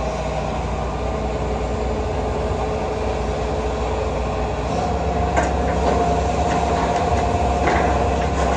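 Hitachi ZAXIS 225USR excavator running, a steady diesel drone with a hydraulic whine as the arm lifts the steel cutter attachment; the whine steps up slightly in pitch about halfway through. A couple of short knocks are heard in the second half.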